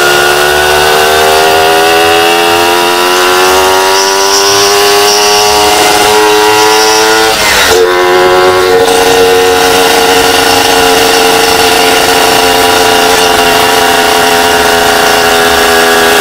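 Single-cylinder two-stroke engine of a 1998 Suzuki Satria 120 S with an aftermarket side exhaust, pulling under way. Its pitch climbs slowly, dips at a brief gear change about halfway through, then holds steady.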